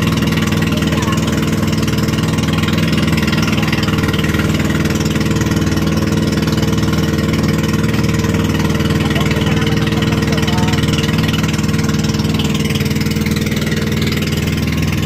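Motorized outrigger boat's (bangka's) engine running steadily under way on a sea test run, with water rushing past the hull. The engine holds an even, unchanging note, which the owner takes as the boat running in top condition.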